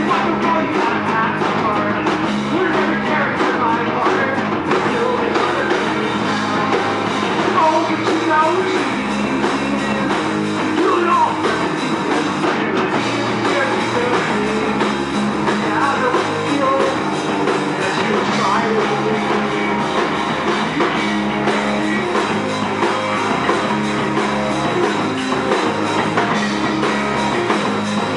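Live rock band playing a song: drum kit, guitars and a singing voice, loud and without a break.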